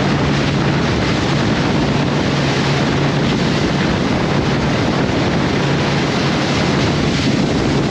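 Boat motor running steadily at speed, a constant low hum under heavy wind on the microphone and the rush of water past the hull.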